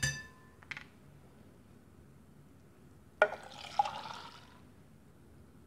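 A brief ringing clink at the start, then, about three seconds in, a sharp knock and about a second and a half of splashing as a thick milk-and-pudding custard mixture is poured from a glass bowl into a metal saucepan.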